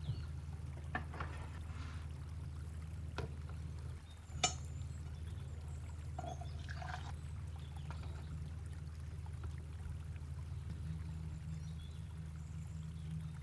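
Liquid being poured, over a steady low hum, with a few sharp clicks in the first half.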